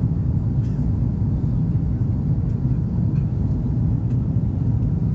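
Steady low rumble of an Airbus A330-200's Rolls-Royce Trent 700 jet engines and rushing airflow, heard from inside the passenger cabin during the climb after takeoff.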